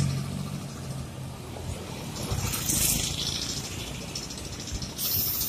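Coach bus driving past, its diesel engine humming steadily as it goes by, with short bursts of hiss about two and a half seconds in and again near the end.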